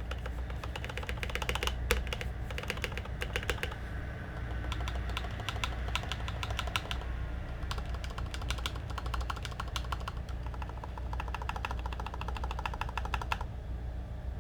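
Typing on a Ganss ALT61 mechanical keyboard with Kailh Black linear switches lubed in Tribosys 3204 and PBT keycaps: fast runs of key clacks in about four bursts with short pauses between.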